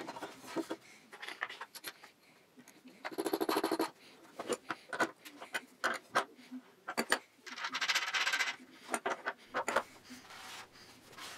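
Steel bolt hardware clinking as a bolt, washer and nut are fitted through a wooden leg and frame. There are scattered small metallic clicks, and twice a burst of rapid clicking as a wrench tightens the nut.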